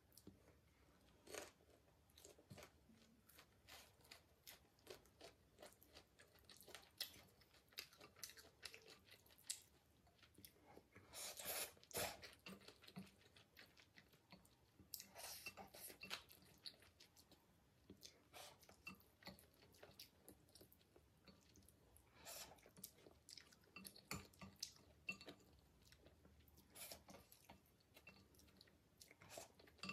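Quiet, close-miked chewing of black bean ramen noodles: many short wet mouth clicks, with denser, noisier spells about eleven and fifteen seconds in.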